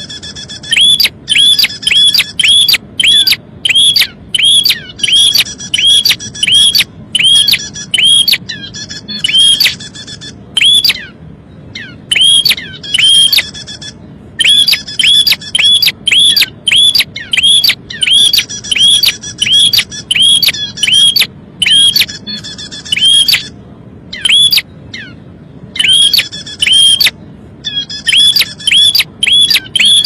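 Prenjak (prinia) lure recording: loud sharp call notes, each dropping in pitch, repeated about twice a second in runs of several seconds with short breaks. Thin high chattering of nestlings is mixed in.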